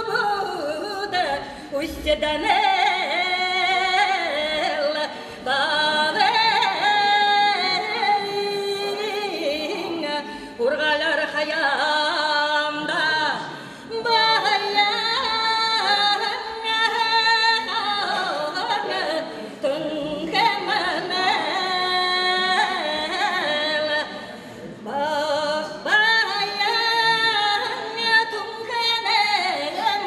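A woman singing a Buryat folk song solo into a microphone, in long held and bending phrases broken by short pauses for breath.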